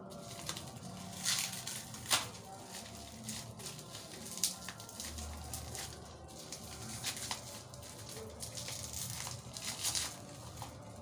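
Plastic seal wrapping on a skincare product being cut and torn open with a key: irregular crinkling, scraping and tearing of the plastic, with a few sharp clicks.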